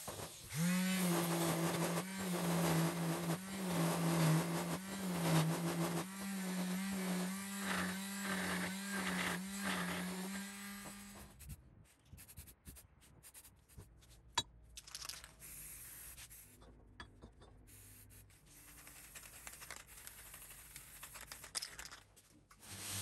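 Angle grinder spinning up and running with a steady whine, grinding flange bushings down flush with the steel tubes; the grinding noise swells and eases with each pass. It stops about eleven seconds in, leaving only faint scattered sounds.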